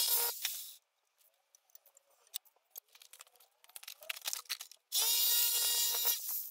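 Angle grinder with a cutting disc slicing thin sheet steel for a repair patch, in two short cuts: one that stops under a second in, and another from about five seconds in lasting about a second and a half. Light clicks and taps of the metal being handled come between the cuts.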